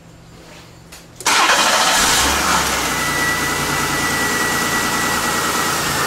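V6 car engine being started again after stalling during a vacuum-leak test: it cranks about a second in, catches and runs steadily. A thin, steady whistle sits over the running engine from about halfway through.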